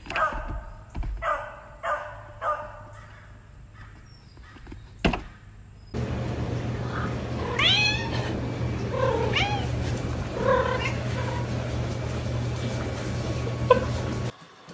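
Four short calls in quick succession at the start, then a domestic cat meowing several times, its calls rising and falling, over a steady low hum.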